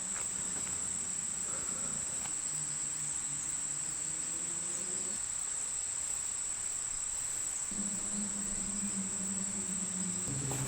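Insects trilling in one high, unbroken, steady tone, with faint low sustained tones underneath that shift pitch every few seconds.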